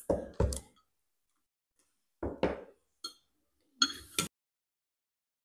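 Spoons knocking and clinking against ceramic soup bowls during a meal: a few short, separate sounds with silence between, the clearest a ringing clink about four seconds in.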